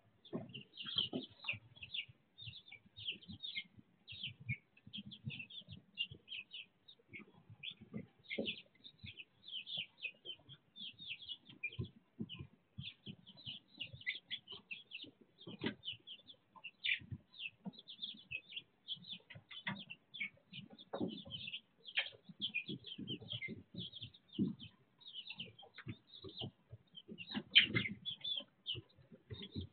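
A flock of young chicks peeping constantly in short, high chirps, over soft irregular knocks and rustles. The loudest burst of peeping and knocking comes near the end.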